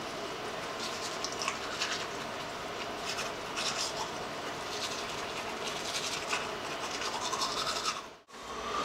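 Manual toothbrush scrubbing teeth: a steady run of quick, irregular scratchy strokes. The sound drops out briefly near the end.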